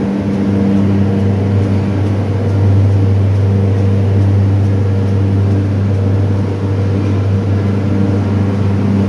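Steady drone of sugar mill machinery: a deep, unchanging hum with several overtones stacked above it.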